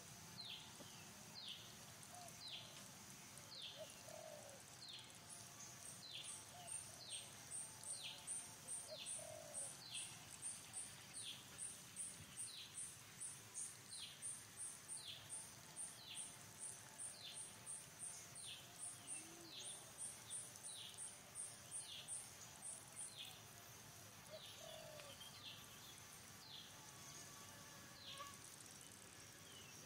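Faint forest ambience of birds: short falling chirps repeating about twice a second, a few low coos, and a fast high-pitched pulsing that starts a few seconds in and stops about three quarters of the way through.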